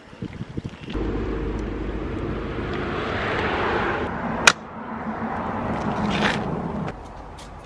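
Cars passing on the road, their tyre noise swelling and fading twice. About halfway through comes a single sharp metallic click as the e-bike's kickstand is flipped down.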